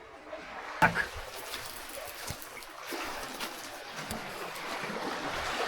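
Sea water washing and surging over rocks at a cave mouth at high tide, a steady rushing that slowly grows louder, with a couple of sharp knocks about a second in.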